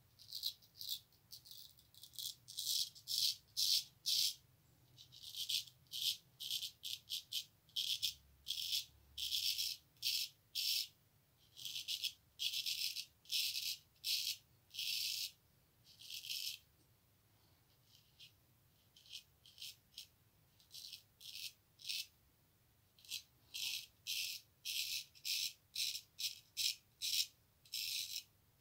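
Straight razor scraping through lathered stubble in quick short strokes, roughly two a second, with a few brief pauses: the second pass of a wet shave.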